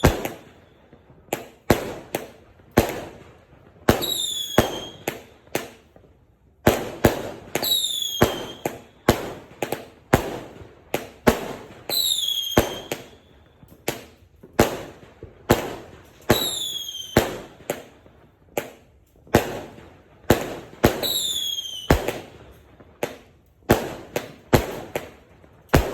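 Fireworks going off in a steady repeating sequence: sharp bangs several times a second, with a short falling whistle about every four seconds.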